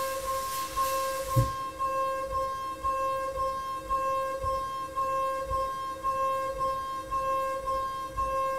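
DATRON MX Cube CNC mill's 8 mm single-flute end mill cutting metal at 32,000 rpm in a dynamic roughing pass: a steady high whine at the cutter's one-edge-per-turn rate, swelling and easing slightly as the tool engages. A hiss stops about a second and a half in, with a low thump at the same moment.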